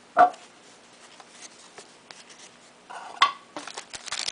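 Trading cards being handled and flipped through, with faint scattered clicks and two short louder sounds, one just after the start and one about three seconds in.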